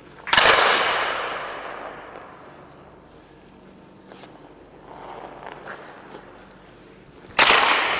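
Two hockey slap shots: each a sharp crack of the composite stick striking the ice and puck, ringing out in the echoing rink for a second or two. The first comes just after the start, the second near the end.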